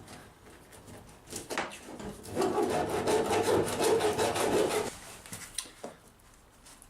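A hand tool rasping steadily through a strip of old pine for about two and a half seconds in the middle, with a few sharp knocks before and after.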